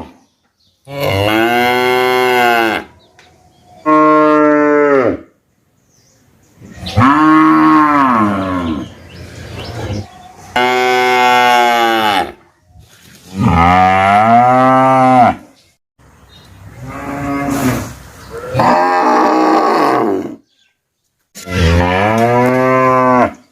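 Cattle mooing: about eight separate long calls, each lasting one and a half to two and a half seconds and rising then falling in pitch, with sudden silent gaps between them.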